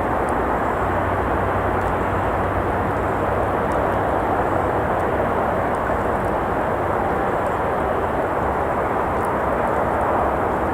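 Steady rushing of road traffic, with a few faint crackles from a campfire.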